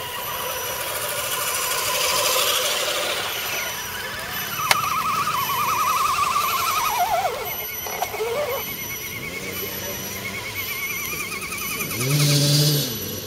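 Electric motors and gearboxes of scale RC crawler trucks whining through mud and water, the pitch warbling and rising and falling with the throttle, one whine dropping away about seven seconds in. A sharp click just under five seconds in, and a short low tone near the end.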